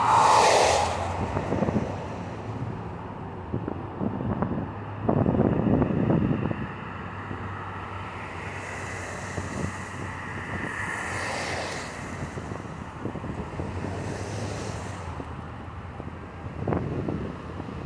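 Steady road traffic noise with wind buffeting the microphone, rising in several louder swells.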